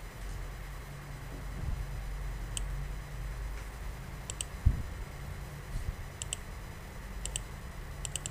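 Computer mouse buttons clicking, mostly as quick press-and-release pairs, a few times spread out and then a quicker cluster near the end. A single dull thump about halfway through, over a low steady hum.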